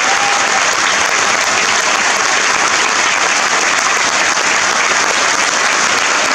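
Theatre audience applauding, a dense, steady clapping.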